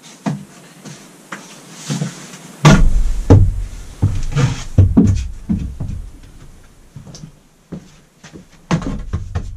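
Wooden knocks and thumps as lengths of lumber are picked up, moved and bumped about, an irregular run of strikes loudest about three to five seconds in.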